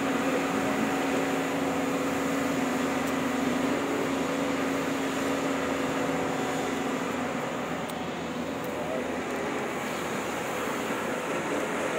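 JCB crawler excavator's diesel engine and hydraulics running steadily under load while it digs and swings, with a steady hum that weakens about halfway through.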